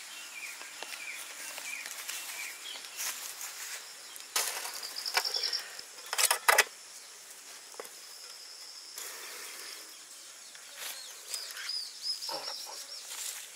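Outdoor ambience: small birds chirping, with a high trilling call twice. A few short, loud noises come about four and six seconds in.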